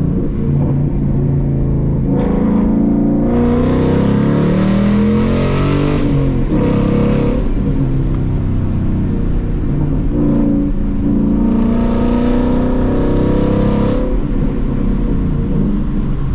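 Ford Mustang GT's 5.0-litre V8 pulling hard under full acceleration through the gears of its 6-speed manual. The engine note climbs in pitch several times, each climb cut off by an upshift.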